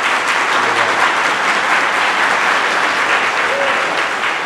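Audience applauding steadily, with a few voices heard through the clapping.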